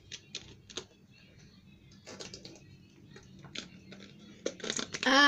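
Irregular light clicks and taps of a plastic drink bottle being handled and drunk from, coming thicker near the end.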